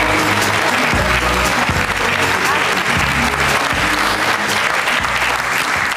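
Studio audience applauding over a guest's entrance music, which has a bass beat about once a second.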